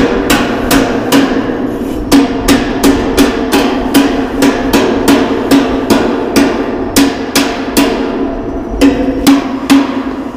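A hammer beating on steel roof framing in quick, even strikes, about three to four a second, with the metal ringing between blows.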